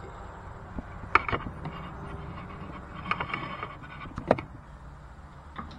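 A few sharp knocks and clatters of things being handled and set down at a kitchen counter, the loudest a little over a second in and about four seconds in, over a steady low hum.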